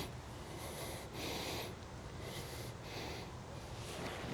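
Wind blowing over the microphone: a low rumble under a hiss that swells and fades about once a second.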